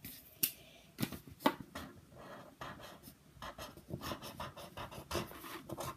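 The invisible-ink end of a spy pen scratching across paper as a message is written, in short, irregular strokes with a few sharper taps.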